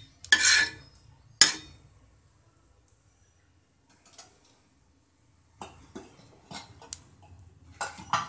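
Metal utensil knocking and scraping on a dosa tawa. One sharp clink comes about a second and a half in, and a run of knocks and scrapes fills the last few seconds.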